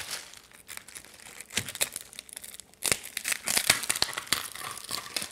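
Plastic bag crinkling and rustling as frozen flour tortillas are handled and pulled apart, in irregular crackles that grow busier in the second half.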